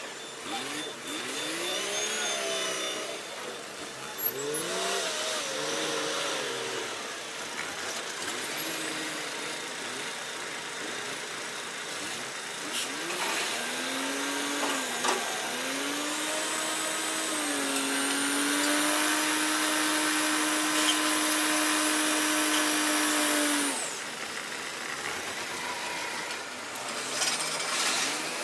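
An engine-driven machine revving, its pitch swinging up and down, with a sharp knock about four seconds in. From about halfway it rises to a steady high pitch and holds it for several seconds before dropping off near the end.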